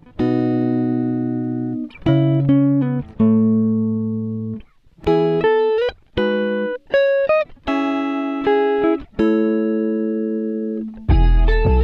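Background music: plucked guitar-like chords, each struck and left to ring for about a second or two, with short breaks between phrases.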